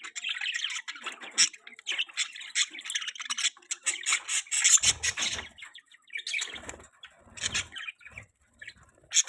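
Budgerigars chattering and chirping rapidly in an aviary, in bursts with short pauses, with a few low thumps about halfway through and again near the end.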